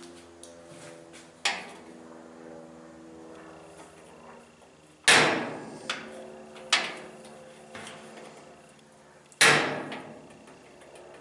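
Hammer blows on the metal parts of a Maytag Centennial washer being dismantled: about six sharp knocks, each dying away briefly, the two heaviest about five and nine seconds in. A faint steady hum runs underneath.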